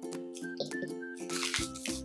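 Background music: a light melody of short notes over held chords, with a bass line coming in about one and a half seconds in.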